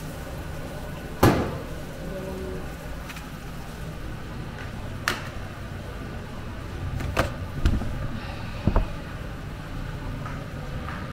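Several sharp knocks and clicks from a washing machine's lid and door being handled, the loudest about a second in, over a steady low hum.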